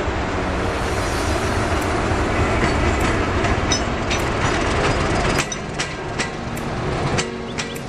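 Diesel locomotive hauling a train past at speed: a dense rumble and rush of engine and wheels, dropping off about five seconds in, with sharp clicks of the wheels striking rail joints through the second half.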